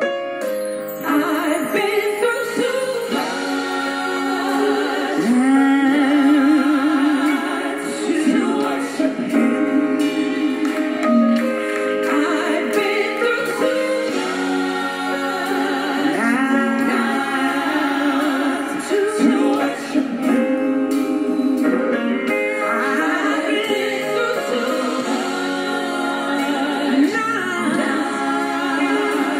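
A woman singing gospel over instrumental accompaniment, with long held and gliding notes full of vibrato.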